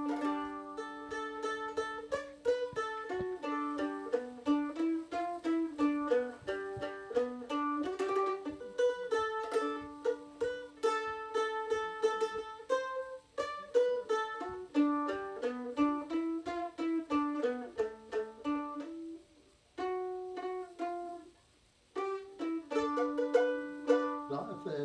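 Solo mandolin playing a country melody with quickly picked single notes, pausing briefly twice near the end.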